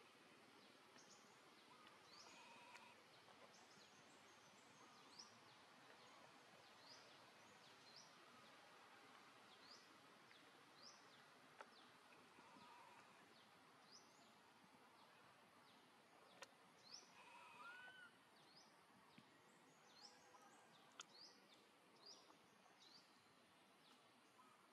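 Faint outdoor ambience: a low steady hiss with short, high, rising chirps recurring about once a second, a few lower calls, and occasional faint clicks.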